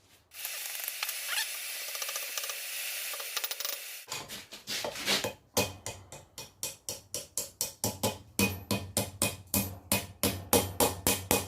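A steady hiss for about four seconds, then a hammer striking hot steel on an anvil in a fast, even run of blows, about three a second, as the knife's handle is bent over into a curl.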